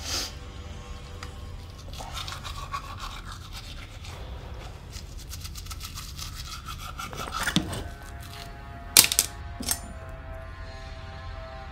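Manual toothbrush scrubbing teeth in steady strokes, then two sharp taps about nine seconds in as the brush is knocked against the edge of the sink.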